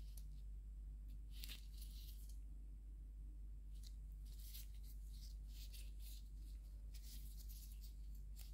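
Faint rustling and scratching of disposable gloves handling small circuit boards and their ribbon cables, in several short spells over a steady low hum.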